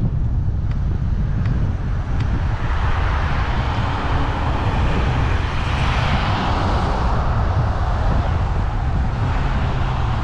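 Wind rumbling on a bicycle-mounted action camera's microphone while riding, with a car passing: its tyre and road noise swells to a peak about six seconds in and then fades.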